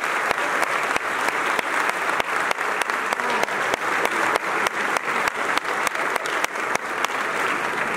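A theatre crowd applauding, many hands clapping steadily.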